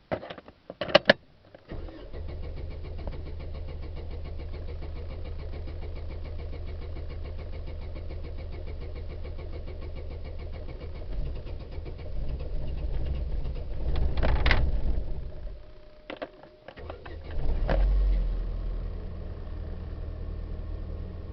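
2004 Chevrolet Vivant engine being started with difficulty: a couple of sharp clicks, then the engine turns over and runs for many seconds, growing louder toward the middle. It cuts out about sixteen seconds in, then catches again with a surge and settles into a steady run.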